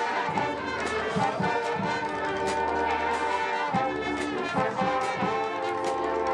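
Marching band playing: the brass section holds sustained chords that change about two-thirds of the way through, with scattered drum hits from the percussion.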